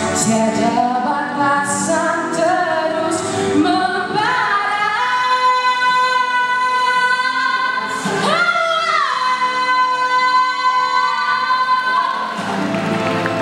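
A teenage girl sings a Malay song solo into a microphone, holding long sustained notes with a bend in pitch a little past the middle.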